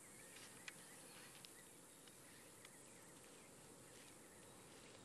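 Near silence: faint outdoor ambience with a few soft bird chirps and an occasional light tick.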